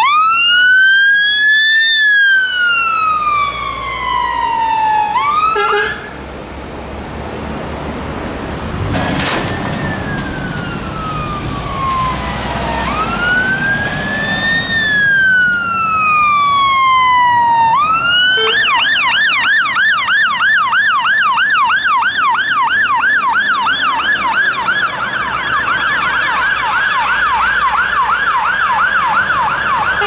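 Scania fire engines' sirens: a slow wail rising and falling over a few seconds, broken off about six seconds in, then another wail that switches about eighteen seconds in to a fast yelp of several rises a second, which cuts off at the end.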